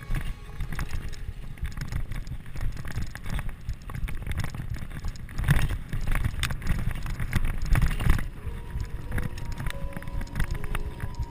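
Mountain bike rattling and jolting down a rough dirt downhill trail, heard from a camera mounted on the rider or bike: a rumbling ride noise with wind buffeting the microphone and irregular knocks from bumps and landings, heaviest about five and a half and eight seconds in.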